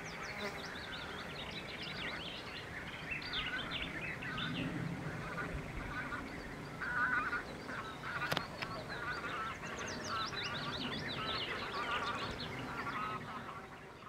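Wild birds calling and singing over one another in a busy, continuous chorus of short chirps, trills and quick sliding notes, with one sharp click about eight seconds in.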